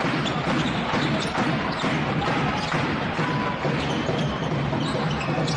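Live basketball game sound in an indoor arena: the ball bouncing on the hardwood court with short sharp ticks from play, over steady crowd and hall noise.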